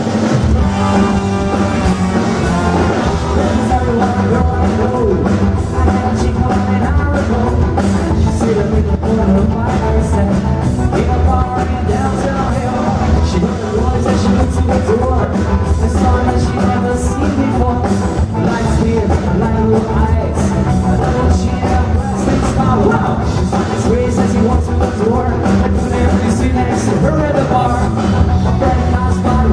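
Live rock band playing loud and steady, with drums, instruments and singing.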